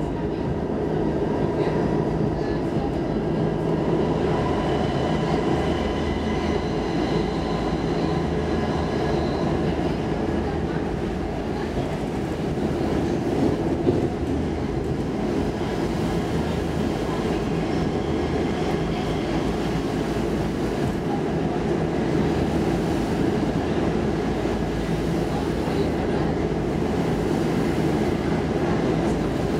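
Stockholm Metro C14 subway car running at speed, heard from inside the car: a steady rumble of wheels on rail with faint whining tones above it and one sharp knock about halfway through.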